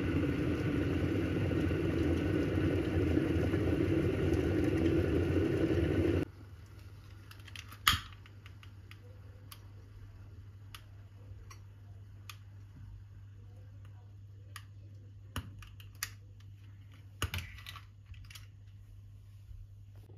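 Glass electric kettle boiling, a steady rushing rumble that cuts off suddenly about six seconds in. Then quiet with scattered sharp clicks of a long-nosed candle lighter being sparked, the loudest about eight seconds in and a few more near the end.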